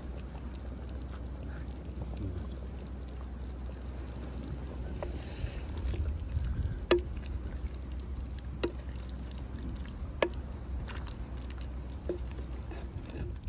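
A wooden spoon stirring chicken and gravy in a clay handi pot, knocking sharply against the pot several times, over a steady low rumble.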